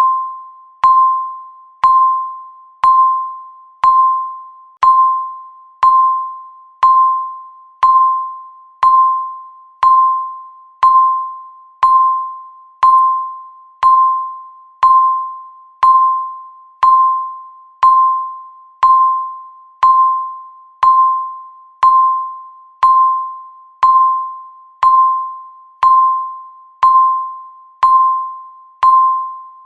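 Countdown timer's electronic beep sounding once every second, each a single clear mid-pitched tone that starts sharply and fades before the next.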